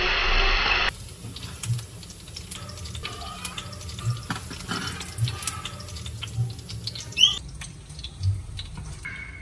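Loud rushing water for about the first second, cut off abruptly. Then quieter kitchen splashing and small clicks, with a short rising squeak about seven seconds in.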